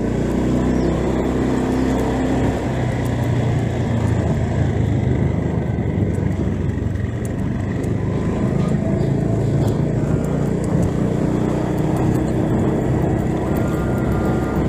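Motor scooter engine running as it is ridden, heard from the rider's seat: a steady hum whose pitch shifts a little as the speed changes.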